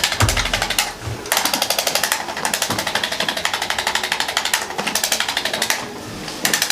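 Handheld electric percussion device tapping rapidly against the back during a chiropractic treatment: fast, even beats, well over ten a second, in runs of one to three seconds with short pauses between.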